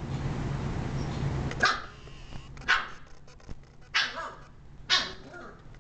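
Shiba Inu barking: four sharp barks about a second apart.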